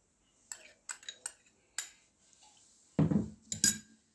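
A metal fork clinking against a glass baking dish and the fish in it: several light clinks, then two louder knocks with a dull thump about three seconds in.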